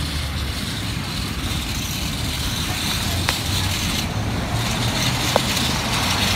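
Street traffic noise, with a car driving past and a low engine hum that grows louder near the end; two faint clicks in between.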